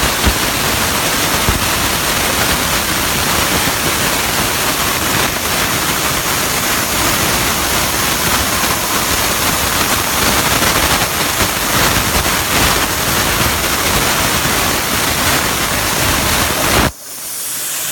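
CNC plasma cutter torch cutting metal: a loud, steady hiss. It breaks off abruptly about a second before the end, and a thinner, higher hiss follows.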